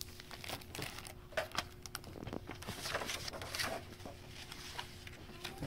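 A hardcover picture book in a clear plastic library jacket being opened and its pages turned: a run of crinkles, rustles and light clicks, busiest in the middle.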